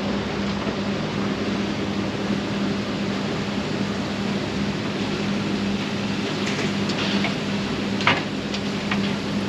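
Steady drone of running machinery with a constant low hum, and a few short knocks and clicks in the second half.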